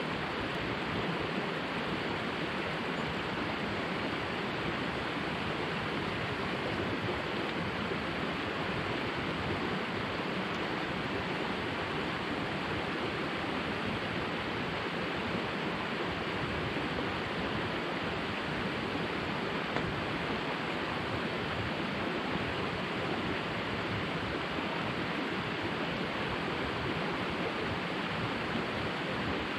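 Steady rushing of a moorland river running high and fast.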